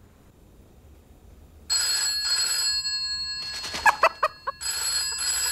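A telephone ringing twice, starting about two seconds in, with a hen clucking a few short times between the rings.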